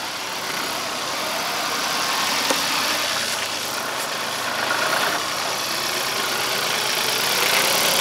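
Yanmar YT333 tractor's diesel engine running steadily at low revs, getting a little louder toward the end.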